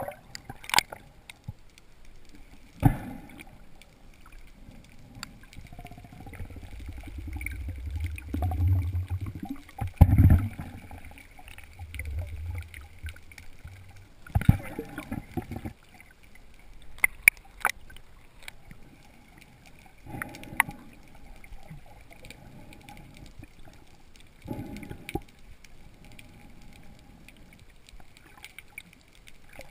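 Muffled underwater water sounds picked up by a submerged camera: gurgling and sloshing with several sharp knocks. A low rumble swells for several seconds about a third of the way in.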